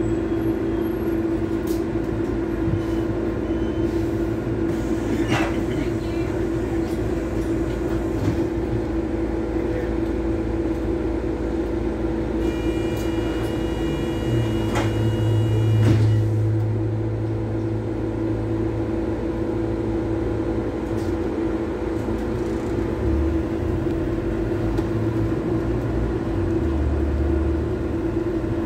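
Double-decker bus in motion, heard from inside on the upper deck: a steady drivetrain hum with road rumble. The low rumble swells, loudest about 16 seconds in, and a short high tone sounds just before.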